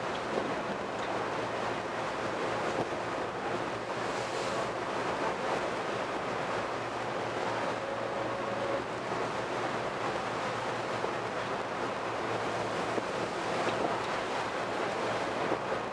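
Strong wind buffeting the microphone over rushing, churning sea water around a passenger boat under way in rough, whitecapped waves, with a low steady hum underneath.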